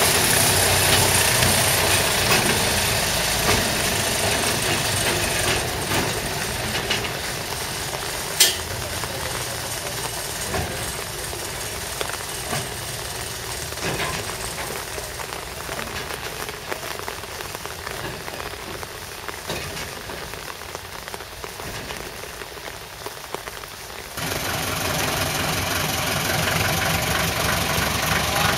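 A small narrow-gauge diesel shunting locomotive running as it moves a car. Its engine grows gradually quieter, with scattered clicks and knocks and one sharp knock about a third of the way in. Near the end the sound cuts to another small diesel locomotive's engine running steadily and louder, close by.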